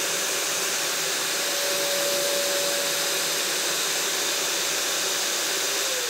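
Integrated dust-extraction vacuum, switched on from the 3x4 sander's trigger, running steadily with a constant rushing airflow and a steady motor whine. Near the very end the whine starts to drop in pitch as the vacuum shuts off and spins down.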